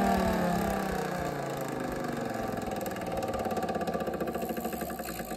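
Mini 3D-printed Thunderbolt-style dual-tone siren winding down. Its wail falls steadily in pitch and fades, turning into a fast flutter as the rotor slows.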